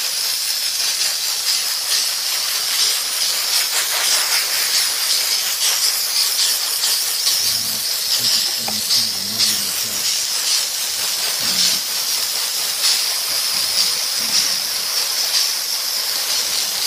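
Vapor steam cleaner's nozzle blowing a steady high hiss of steam onto a desktop fan's wire grille, the hiss wavering slightly in strength.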